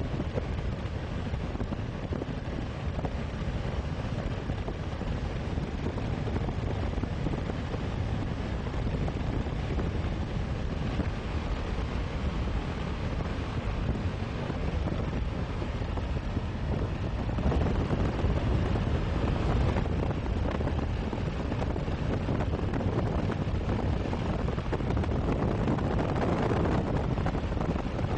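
Wind buffeting the microphone outdoors: a steady, noisy rush strongest in the low end, getting a little louder about two-thirds of the way through.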